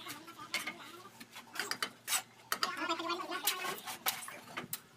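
Steel brick trowels clinking and scraping against bricks and mortar as bricks are laid and tapped into place, in sharp, irregular clicks.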